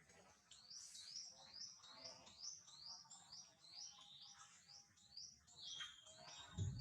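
A songbird singing faintly: a regular run of short, high, falling chirps, about two or three a second. A low thump near the end.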